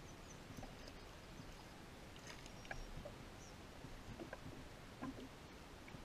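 Faint, scattered small clicks and splashes as a hooked bass thrashes at the surface and is reeled in toward a kayak.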